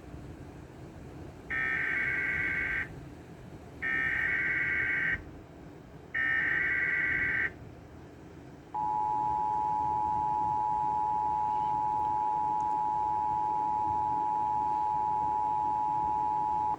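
Emergency Alert System header for a severe thunderstorm warning: three short bursts of warbling SAME digital data tones, each about a second and a half long, then the EAS two-tone attention signal, a steady two-pitch tone that starts about nine seconds in.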